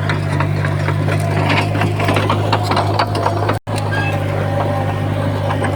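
Komatsu D51PX bulldozer's diesel engine running steadily under load, with many clicks and rattles over the hum. The sound cuts out for an instant about three and a half seconds in.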